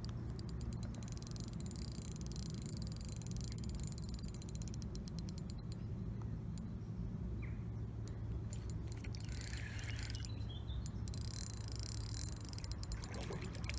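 Fishing reel ticking in several short, rapid runs while a hooked carp is being played, over a steady low hum.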